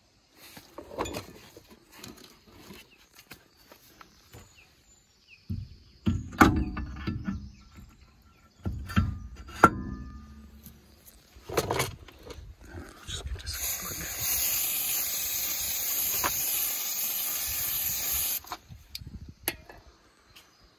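Knocks and clunks as a new rear brake disc is lifted out of its box and handled, with three sharp knocks loudest. Then an aerosol can sprays in one steady hiss for about five seconds, starting a little after halfway.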